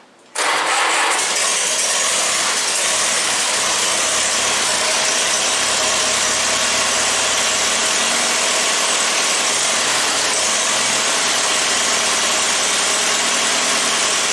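The 1952 Case VAC tractor's four-cylinder gasoline engine catches suddenly about half a second in and runs steadily. It is a first start on a carburetor whose cracked lower half has been sealed with epoxy putty.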